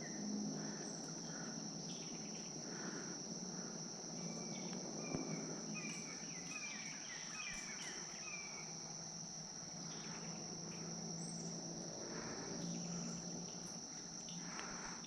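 Steady high-pitched insect drone, with a run of short chirps in the middle.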